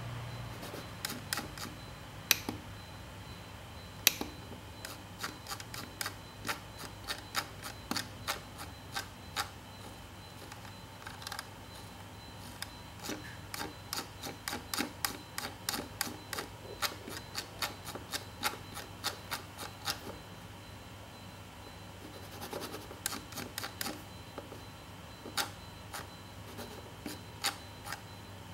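Scroll wheel of an opened Logitech M170 wireless mouse being turned by hand, its ratchet clicking in irregular runs of quick ticks with short pauses between runs. The wheel is being tested after repair of a jumpy scroll.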